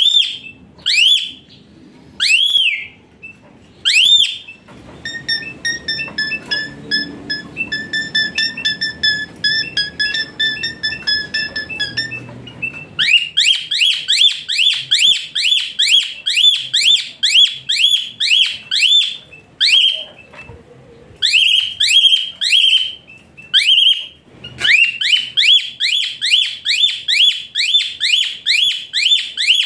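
Asian pied starling (jalak suren) calling: loud, sharp whistled notes, each sweeping up and falling away. First a few single notes, then a softer run of quick chattering notes, then from about halfway a fast series of two or three loud whistles a second with two short breaks. The fast loud series is the starling's 'hot shot' call.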